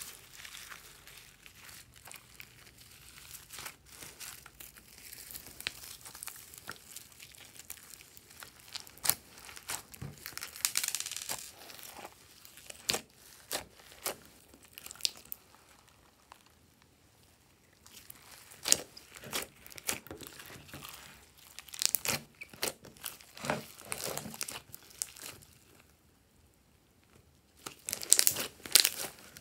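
Hands stretching, folding and squeezing glossy slime mixed with foam beads and glitter: irregular sticky crackling and popping clicks, with two short pauses and the loudest crackles near the end.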